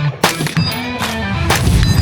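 Background music with a steady bass line and sharp percussive hits, one about a quarter second in and another about a second and a half in.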